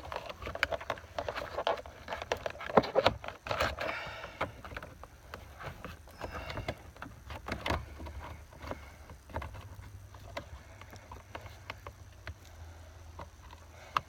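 Scattered clicks, taps and rubbing of plastic parts as a cruise control switch is worked up through its hole in a steering wheel, over a faint low steady hum.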